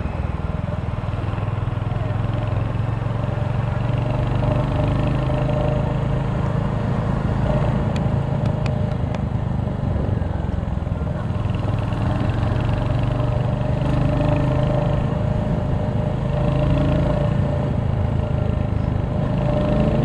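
Royal Enfield Hunter 350's single-cylinder engine running steadily as the motorcycle cruises along a city street, with a low rumble and a steady hum.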